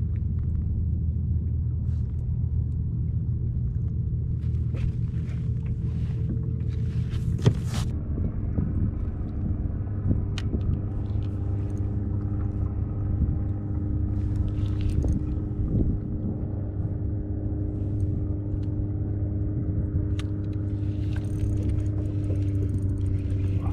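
A motor running steadily with a low rumble, its pitch shifting slightly about eight seconds in, with a brief sharp click just before.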